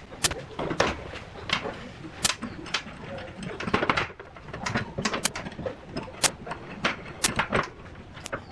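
Irregular sharp clicks and knocks of hard objects being handled and set down, about one to three a second, some louder than others.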